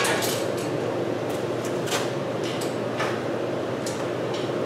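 Light metal clicks and knocks, a few scattered through, from hands working on an engine hanging from a hoist chain, over a steady background hum.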